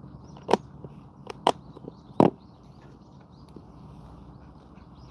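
Four short, sharp clicks in the first half, the last the loudest, over a faint steady outdoor hiss with faint high chirping.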